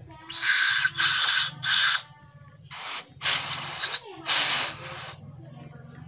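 Aerosol carburetor cleaner sprayed through its straw onto a motorcycle throttle body in six short hissing bursts, to clean deposits out of it.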